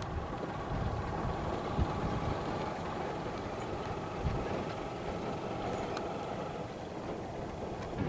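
Steady low rumble of distant motor engines, with a couple of faint knocks.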